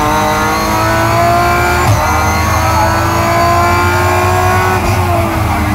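Rally car engine heard from inside the cabin, accelerating hard. The revs climb, break sharply on a quick upshift about two seconds in, climb again more slowly, and fall away near the end.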